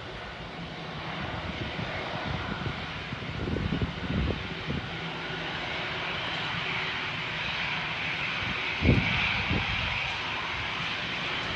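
Jet engines of an Aer Lingus Airbus on the runway: a steady rushing noise that grows slowly louder, with a brighter hiss building from about six seconds in. A few low thumps, the loudest about nine seconds in.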